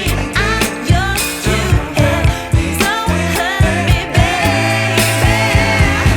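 Pop song with a female singer over a steady beat and deep bass.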